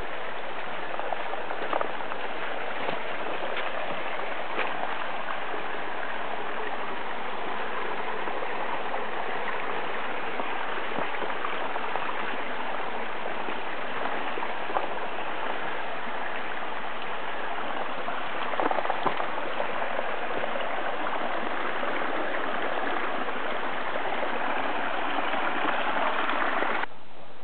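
Steady rush of flowing water from a stream, with a few faint footsteps over it. The rushing cuts off suddenly near the end.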